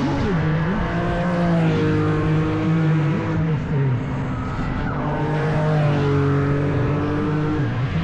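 GT race car engines running hard, more than one car close together, their pitch stepping with gear changes. There is a quick flurry of downshifts just after the start and another near the end.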